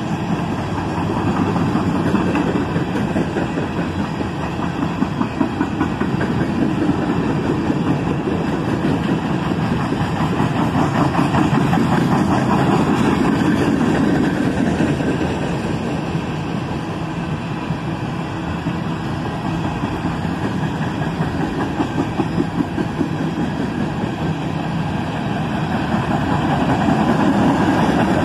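Freight train passing at a steady cruising speed: the diesel engine rumble of its three GE ES44AC locomotives and the rolling of steel wheels on the rails, swelling and easing a little as it goes by.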